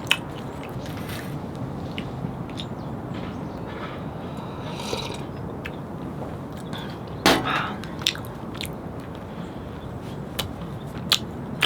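Close-up eating sounds: chewing and biting, with scattered small clicks and taps, over a steady hiss of rain. One louder knock comes about seven seconds in.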